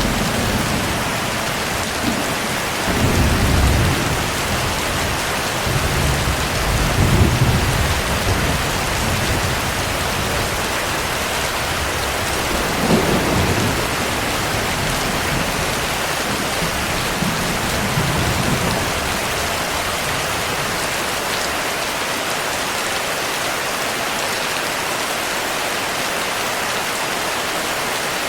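Steady heavy rain with several low rolls of thunder that swell and fade in the first two-thirds, then just the rain.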